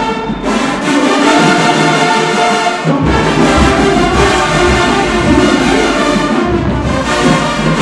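Marching band brass section playing loud sustained chords over low drum beats, the harmony changing about three seconds in.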